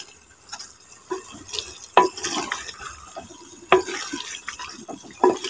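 Chopped green capsicum tumbling into a clay pot of moist potato masala and being stirred in with a wooden spoon: a soft, wet clatter of vegetable pieces with a few sharp knocks of the spoon against the pot.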